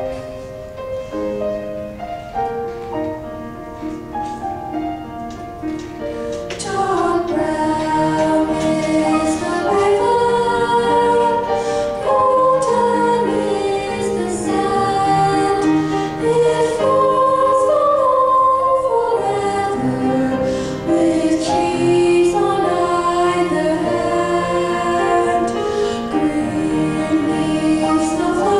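School choir of young voices singing a slow, melodic choral piece with piano accompaniment; the opening seconds are a quieter piano introduction, and about six seconds in the choir comes in and the music grows louder.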